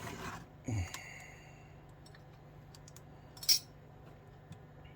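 Small metal carburetor parts clinking while being handled: a ringing clink just under a second in, and a sharp, louder click about three and a half seconds in.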